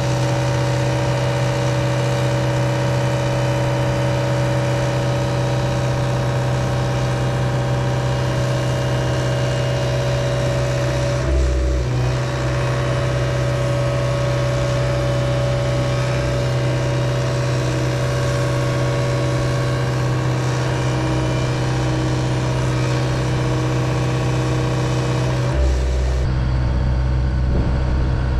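John Deere 85G compact excavator's diesel engine running steadily with its hydraulics under load, holding a 3,600 lb concrete block at the machine's tipping point. The sound shifts briefly about eleven seconds in.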